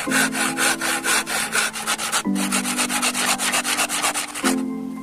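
Quick, even back-and-forth strokes of hand sanding or rasping on wood, stopping about four and a half seconds in. Background music with sustained chords plays underneath.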